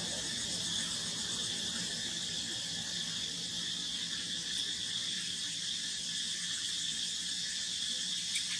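Steady chorus of insects: a continuous, even, high-pitched buzz that does not let up.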